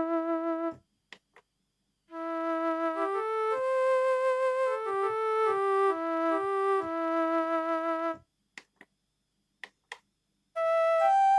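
Kurzweil K2000 synthesizer factory program played dry, without effects: a single-line melody of held and moving notes that breaks off after about a second, resumes for about six seconds, then stops. A few faint clicks fall in the silent gaps, and near the end a different program starts with rising notes.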